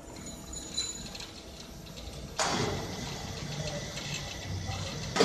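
SWZ7009 CNC beam drilling machine running during a test: a steady machine hum, with a louder noisy sound that starts suddenly about halfway through and a sharp metallic knock at the end.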